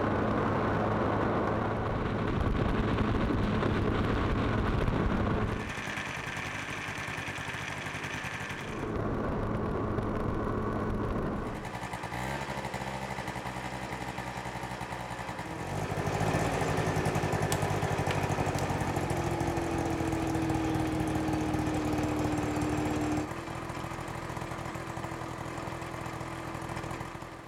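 Small motorbike's engine running as it is ridden, a steady engine hum whose pitch and loudness jump abruptly every few seconds as the recording cuts between takes.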